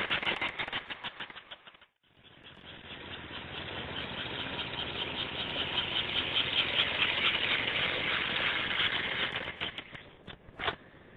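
American Flyer S-gauge model train running on its track, wheels clicking rapidly over the rail joints as it moves away. After a brief dropout it comes back, running steadily, then slows and stops near the end with a single sharp click.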